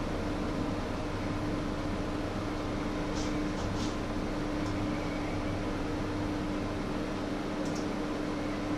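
Steady machine hum with one low, even tone, as from a running fan or kitchen appliance, and a few faint light clicks from food being handled on a wooden cutting board, a little after three seconds in and again near the end.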